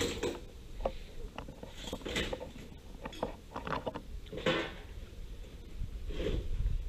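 Scattered light clatter and knocks of tools and supplies being handled on a workbench, with a few short rustling scrapes.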